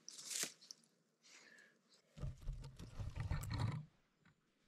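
Rustling and handling noise: a short rustle as mushrooms go into a woven basket, then from about two seconds in, nearly two seconds of low rumbling and crunching as the camera is moved over dry pine needles.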